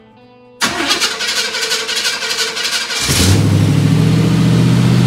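A 1955 Chevy's engine turned over by the starter for about two and a half seconds, catching about three seconds in and settling into a steady idle through its new stainless exhaust with Magnaflow mufflers.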